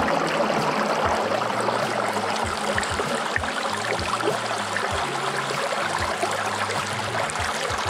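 Fast-flowing canyon river rushing over rocks: a steady, dense rush of water.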